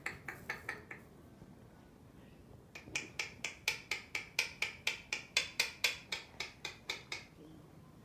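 A parrot making a rapid series of sharp clicks, about four to five a second. A short run comes at the start, and a longer run of about twenty clicks starts about three seconds in and stops about seven seconds in.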